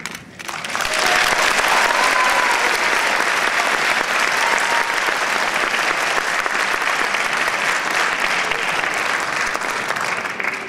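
Audience applauding, swelling up about half a second in and dying away near the end.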